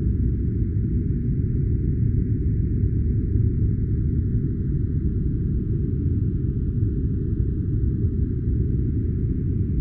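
A steady, deep noise track of the sleep-sound kind: an even, muffled rumbling hiss with almost no high sound in it, unchanging in level.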